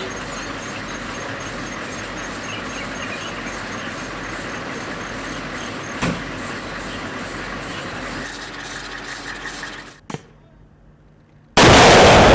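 A Humvee's engine runs steadily, with a short click about halfway. After a brief lull, a TOW anti-tank missile fires from the Humvee's M41 ITAS launcher with a sudden, very loud blast near the end, which dies away slowly.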